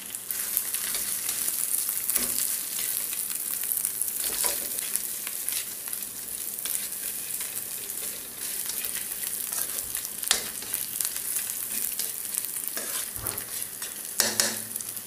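Fish cooking in sambal chili in a frying pan, sizzling steadily, while a utensil stirs and now and then knocks or scrapes the pan, most sharply about ten seconds in and near the end.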